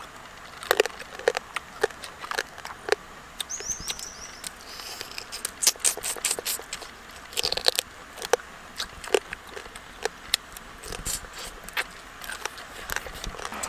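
Cooked crab shell being bitten, cracked and pulled apart by hand and teeth, with chewing: irregular sharp cracks and crunches.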